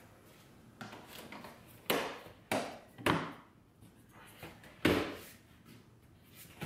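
Hard plastic clicks and knocks of center-console trim panels being handled and pressed into place. There are a few light clicks, then three loud knocks about half a second apart, and a fourth nearly two seconds later.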